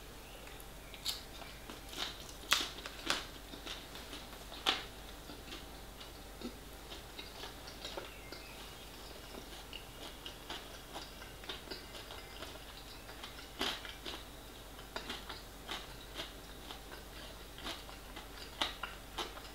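A person chewing a mouthful of soft steak-and-dumpling pie close to the microphone: faint, irregular wet mouth clicks and lip smacks, with a few sharper ones a few seconds in and again near the end.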